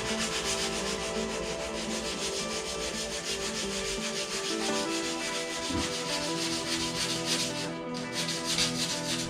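Sandpaper scrubbing the primer on a car hood in rapid, even back-and-forth strokes, several a second.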